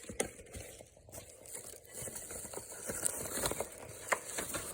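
Paper and plastic packaging rustling and crinkling as a mailed envelope is handled and opened, with scattered light clicks and taps.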